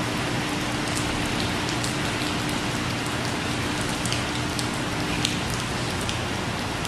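Heavy rain falling onto a wet, puddled pavement: a steady hiss with scattered sharp ticks of single drops landing.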